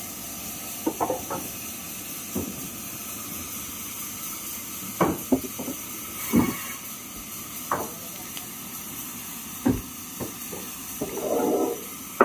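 Sawn wooden beams knocking and clattering against each other as they are handled and stacked: irregular single knocks, with a short scraping slide near the end. A steady hiss runs underneath.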